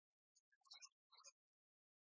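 Near silence, with a few faint, choppy, broken-up fragments of sound in the first half.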